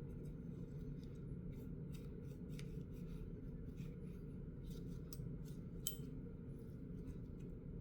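Faint scratchy rubbing and small ticks of an alcohol wipe being worked over a lead syringe shield's housing, with one sharper click about six seconds in, over a steady low hum.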